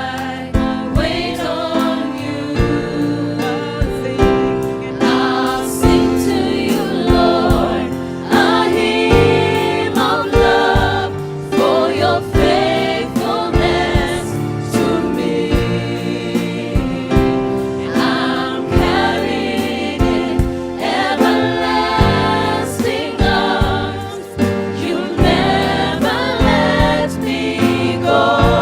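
Gospel choir singing a worship song with instrumental backing and a steady beat.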